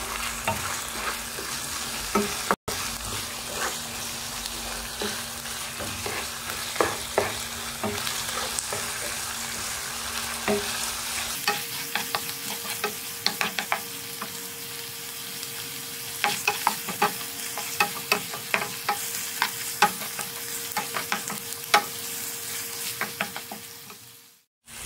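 Diced chicken with onion and green chilli sizzling in oil in a frying pan while a wooden spatula stirs it, scraping and tapping against the pan; the taps come thicker in the second half. The chicken is being sautéed until it turns white.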